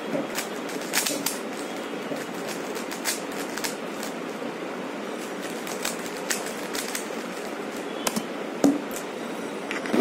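Plastic 3x3 Rubik's cube being turned quickly in the hands: scattered sharp clicks and snaps as the layers turn, over a steady background hiss.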